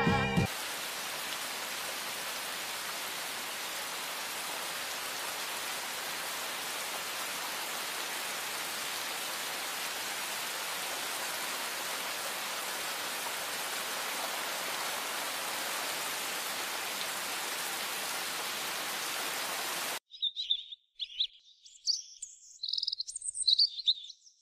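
A steady, even hiss for about twenty seconds that cuts off abruptly. Then small birds chirping in quick, high bursts, louder than the hiss.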